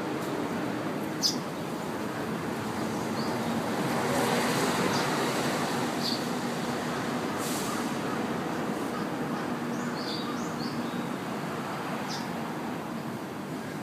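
Escalator running during a descent: a steady mechanical hum and hiss, with a few light clicks, that swells a little louder about four seconds in.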